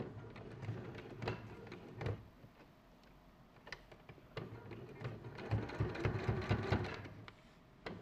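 Sewing machine top-stitching slowly in short runs, with a few sharp clicks in between as the fabric is turned at a corner; a longer, faster run of stitches near the end stops just before it finishes.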